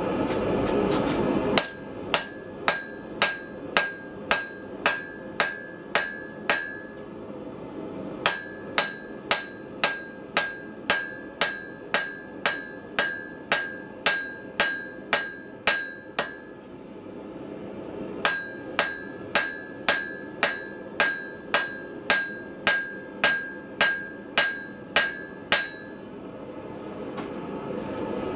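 Hand hammer striking a red-hot cable Damascus steel bar on the anvil while forging the blade: about three blows a second in three long runs with short pauses between them. Each blow rings with a clear high ring. The first second and a half is a steady rushing noise before the hammering begins.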